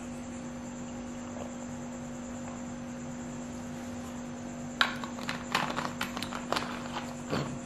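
A steady low electrical hum, then from about five seconds in a run of sharp, irregular clicks and crackles as a plastic soda bottle is handled and its cap twisted.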